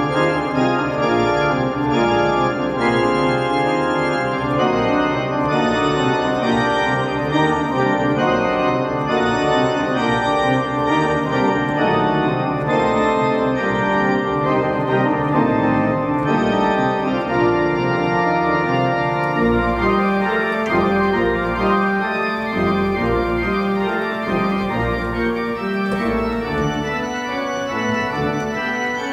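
Church organ playing full sustained chords that change in a steady, flowing progression; about two-thirds of the way through, deep pedal bass notes enter under the harmony.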